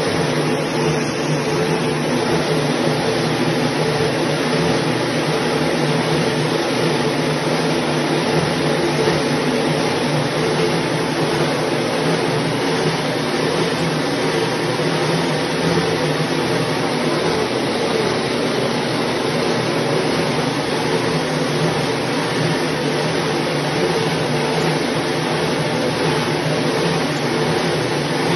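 A 1350 mm BOPP tape slitter rewinder running at speed, slitting film and winding it onto rows of cores. It makes a steady mechanical whir with several steady tones in it.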